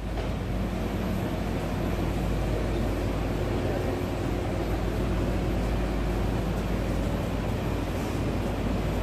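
Steady room noise in a large hall: an even low rumble with a faint, diffuse hum and hiss and no distinct events.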